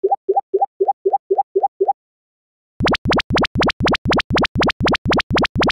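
Electronic sound effects. First a quick run of short rising 'plop' blips, about four a second, stops about two seconds in. Then, after a brief gap, a run of brighter rising sweeps follows at about the same pace.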